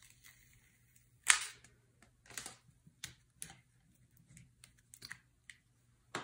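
Paper backing being peeled off adhesive vinyl and the sheet handled on a cutting mat: a scatter of short crackles and taps, the loudest about a second in.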